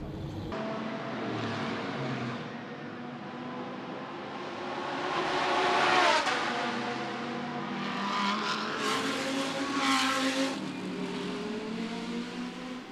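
GT race cars running at speed, their engines revving. One loud car passes about six seconds in with a drop in pitch, and another loud pass comes near ten seconds.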